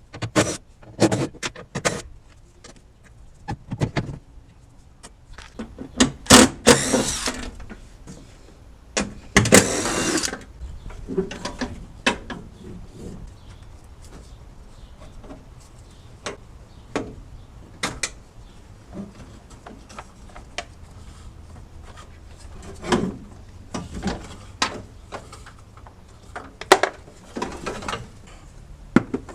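Hand tools and parts being handled on a car engine: scattered clicks, knocks and clinks, with two longer noisy stretches of about a second each, one about six seconds in and one about nine and a half seconds in.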